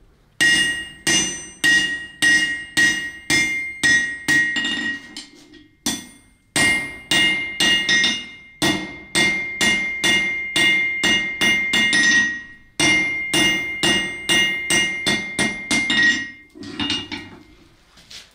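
Hand hammer forging red-hot iron on a steel anvil: about two blows a second, each ringing with a clear metallic tone, in three runs broken by short pauses. A few lighter blows come near the end.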